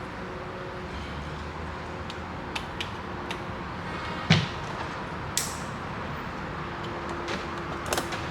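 Scattered clicks and knocks of hand work on a truck door, one louder knock about four seconds in, over a steady background hiss.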